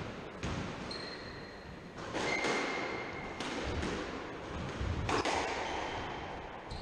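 A squash rally: several sharp knocks of the ball struck by rackets and hitting the court walls, with shoes squeaking on the wooden court floor, all echoing in the enclosed court.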